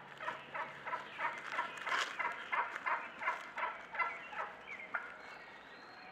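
Male wild turkeys calling in strut: a run of sharp, evenly spaced gobbling notes, about three a second, for the first four to five seconds before they fade out.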